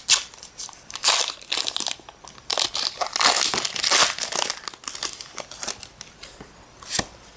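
Plastic blister and foil booster-pack wrapper of a Pokémon card pack crinkling and tearing as it is handled and opened, in irregular bursts of rustling.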